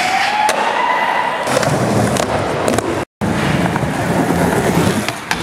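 Skateboard trucks grinding along a ledge edge, with a rising screech lasting about a second and a half, then wheels rolling on a smooth concrete floor with a few sharp board clacks. The sound cuts out abruptly for a moment about three seconds in, then the rolling resumes.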